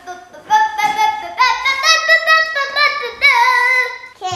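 A young girl singing a tune in a high voice, a run of held notes.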